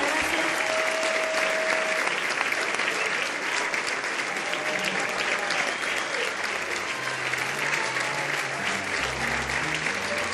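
Audience applauding steadily. About halfway through, low bass notes begin playing underneath.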